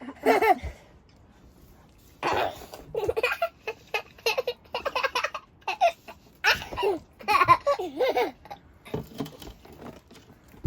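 A child laughing and giggling in repeated short bursts, starting about two seconds in and carrying on almost to the end.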